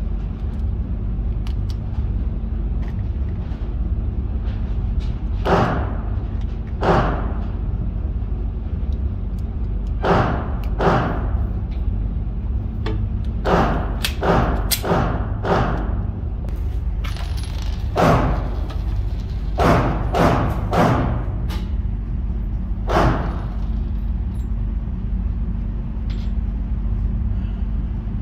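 Pistol gunshots echoing in an indoor shooting range: about a dozen single shots at irregular intervals, some in quick strings, each with a short ringing tail. A steady low hum runs underneath.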